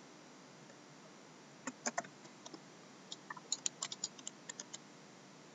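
Faint, scattered clicks of a computer mouse and keyboard, starting about a second and a half in and coming in a quicker run near the end.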